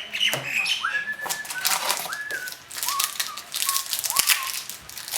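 A pet bird whistling a few short, flat notes. The clicks and flicks of trading cards being handled run underneath.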